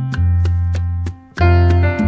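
Background music on a piano-like keyboard: notes struck about three or four times a second over held low bass notes, breaking off briefly just past halfway.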